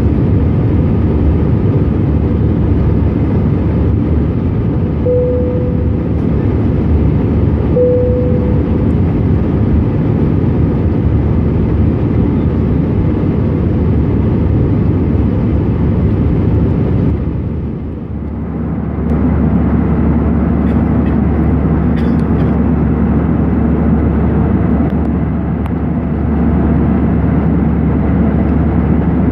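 Airbus A320 cabin noise in the climb after take-off, heard from a window seat over the wing: a steady, loud drone of the jet engines and rushing air. Two short tones sound about five and eight seconds in, and the drone dips briefly about eighteen seconds in.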